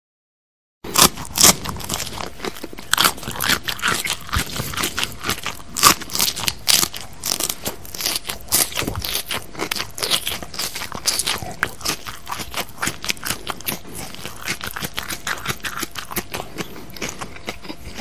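A person chewing crunchy food, heard close up: a quick, uneven stream of crisp crunches that starts about a second in and stops abruptly near the end.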